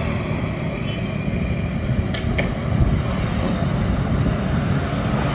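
Street ambience from a phone video: a steady wash of road traffic noise with a low rumble, and two light clicks a little over two seconds in.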